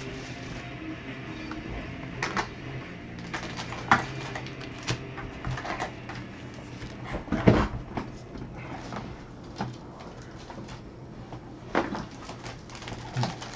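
Gloved hands opening a cardboard Chronicles football card box and handling the packs inside: scattered rustles, clicks and knocks, with one louder thump about seven and a half seconds in, over a steady low hum.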